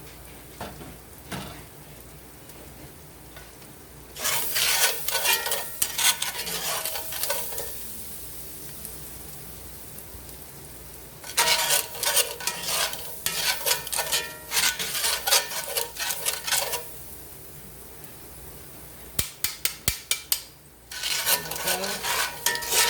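A utensil stirring and scraping through onions and vegetables with flour in a cast iron pan, in three bouts of quick scraping strokes, with a soft sizzle of the pan between them.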